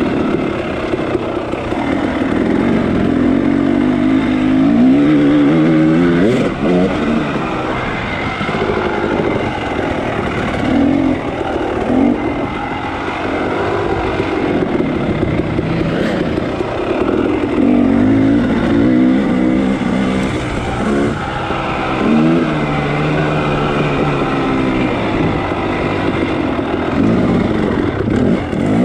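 Dirt bike engine under hard use, revving up and dropping back again and again as the throttle is worked through the trail's corners and gear changes.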